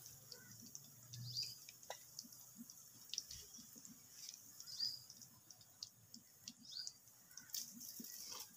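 Faint sizzle of chicken kofta balls deep-frying in hot oil in a karahi, with a few light clicks of a slotted metal spoon against the pan. Faint bird chirps come through now and then.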